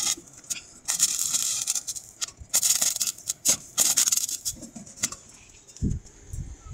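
Stick arc welding: the electrode's arc crackling and sputtering in irregular bursts, dying away about four seconds in as the welding rod burns down to its end.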